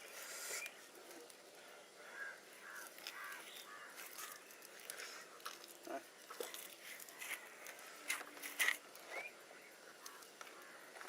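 Birds calling in short chirping notes, some sliding upward, with scattered light clicks and knocks; the loudest knocks come about eight and a half seconds in.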